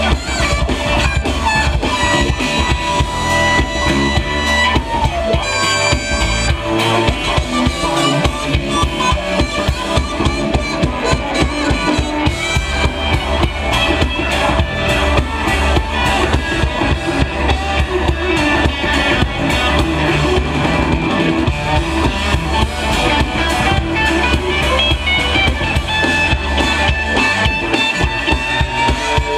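Live funk band playing loud and steady, a drum kit keeping a steady beat under bass and electric guitar, heard from among the audience on the venue floor.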